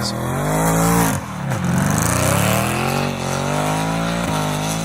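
Mercedes-AMG C63 Black Series' naturally aspirated 6.2-litre V8 revving: the engine note climbs, drops sharply about a second in, climbs again, dips near the middle and then holds.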